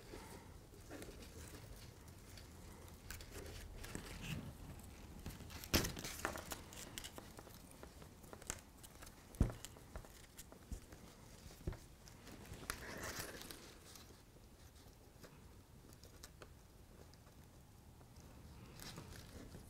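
Faint rustling and scattered small clicks of a bundle of fine wire strands being split and twisted by hand, with a few sharper ticks and a quieter stretch near the end.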